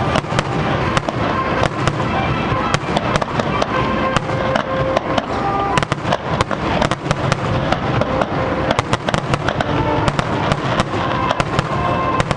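Aerial fireworks shells launching and bursting, with many sharp bangs and cracks, several a second, over a constant rumble.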